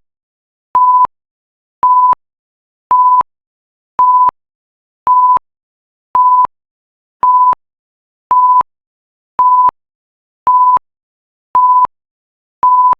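Electronic timer alarm beeping at the end of the countdown: one steady high tone in short, evenly spaced beeps, about one a second, with silence between.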